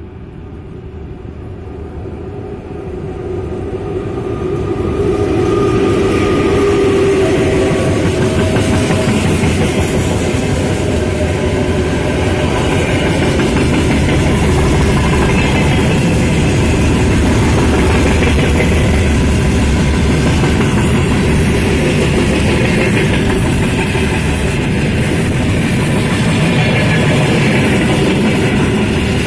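VL10 electric freight locomotive approaching and passing, growing louder over the first six seconds with a hum as it goes by, then a long train of freight wagons rolling past with steady wheel-on-rail noise.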